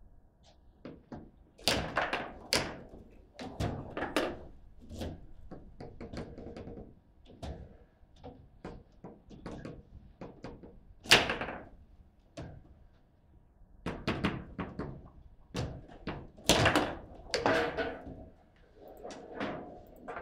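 Foosball table in play: irregular sharp clacks as the plastic figures strike the ball and the ball hits the table, some louder shots among lighter taps, the loudest about eleven seconds in.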